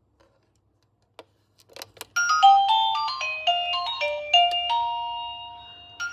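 Electronic doorbell chime playing a melody of quick beeping notes with a long held note in the middle, starting after a few clicks; a new phrase of the tune begins near the end.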